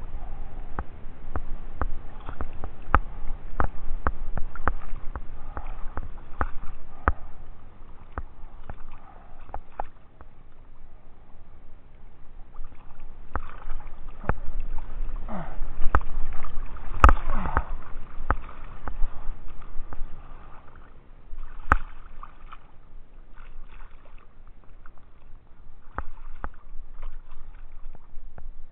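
Water sloshing and splashing around a half-submerged camera as a diver moves through the water at the surface, with frequent small knocks and clicks. The knocks are thickest in the first ten seconds, and the loudest comes a little past halfway through.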